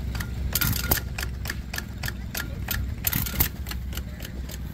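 Small antique gas engines running, with a rapid even clicking, about four or five a second, over a low steady engine rumble.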